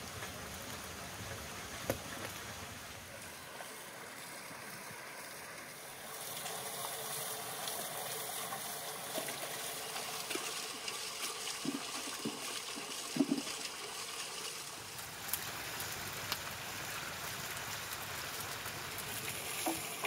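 Wood fire crackling under a large pot, then water boiling hard in the pot with a steady hiss. About twelve seconds in, a few soft knocks and splashes as pieces of beef tripe go into the boiling water.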